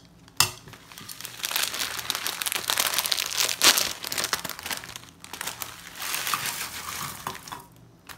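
A sharp clack as a ceramic bowl lid is set down. Then a plastic instant-noodle packet crinkles for several seconds as it is handled and the broken-up dry noodles are shaken out of it into a bowl.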